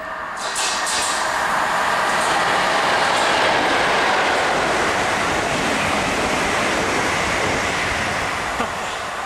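Class 73 electro-diesel locomotive 73109 and the Class 442 electric unit it is hauling passing at speed: a steady rush of wheels on rails that swells as the locomotive goes by and eases near the end as the train recedes.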